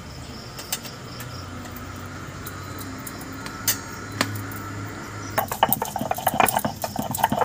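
A few scattered clicks at first. About five seconds in, a stone roller starts grinding on a flat stone slab (sil-batta), rapid gritty scraping and clacking of stone on stone as cumin, coriander and black pepper are ground into a wet paste.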